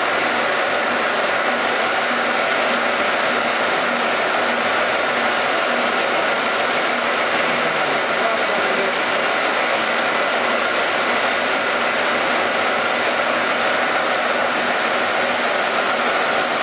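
Metalworking machine running steadily, an even mechanical noise with a faint steady whine.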